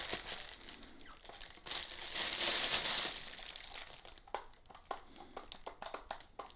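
Packaging crinkling and rustling as it is handled, loudest from about one and a half to three seconds in, followed by scattered light clicks and taps as a hard plastic unit is handled.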